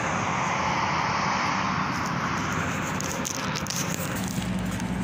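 A steady rushing noise, loudest in the first couple of seconds and then easing off, over a low hum, with a few light clicks near the end.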